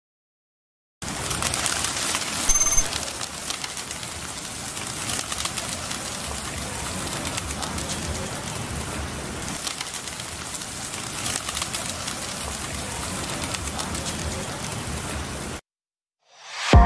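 A large flock of birds calling and flying overhead, over a steady outdoor background, with one brief louder sound about two and a half seconds in. The sound cuts off abruptly near the end.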